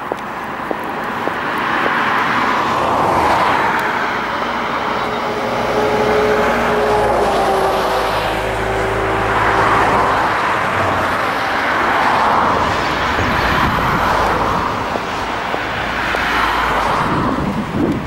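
Road traffic: cars passing one after another, each swelling and fading over a couple of seconds, with a lower engine drone from one vehicle in the middle.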